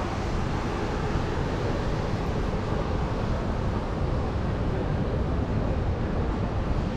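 Steady city street background noise: a continuous low rumble and hiss, typical of traffic on a busy street, with no single sound standing out.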